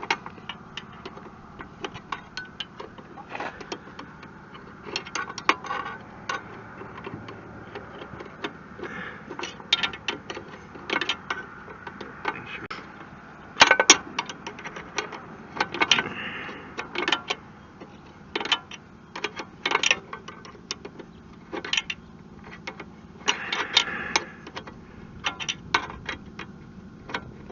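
Irregular metallic clicks and clinks of a wrench working on the loose nuts and bolts of a Kubota BH77 backhoe's joystick control, with one sharper knock about halfway through.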